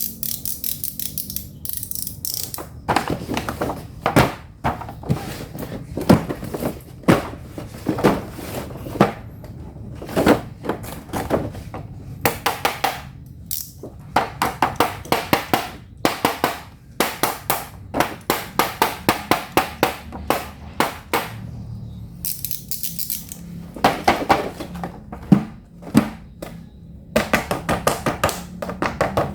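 Hard plastic toys and packaging being handled, giving repeated knocks and clacks, often in quick rattling clusters.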